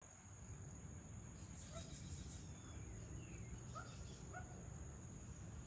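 Faint evening countryside ambience: a steady high-pitched insect trill, with a handful of short bird chirps between about one and four and a half seconds in, over a low background rumble.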